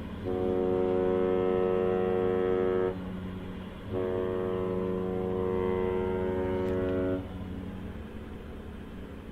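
A large ship's horn sounding two long, steady blasts of about three seconds each, a second apart, over a low steady hum.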